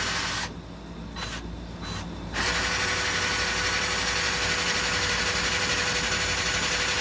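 Handheld electric drill used as a grinder, its bit grinding into wood. It runs, stops about half a second in, gives two short bursts, then runs steadily from about two and a half seconds on.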